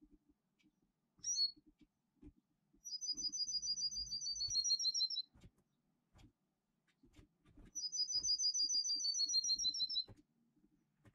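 Songbird song: a long, rapid trill of evenly repeated high notes that slides slightly down at its end, sung twice about five seconds apart, with a short call shortly before the first. Faint low knocks come and go between the phrases.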